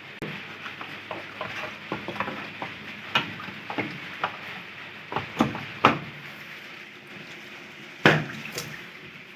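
Plastic casing of a Polytron washing machine being closed up: irregular clicks and knocks of panels and parts being handled and fitted, with one louder knock about eight seconds in.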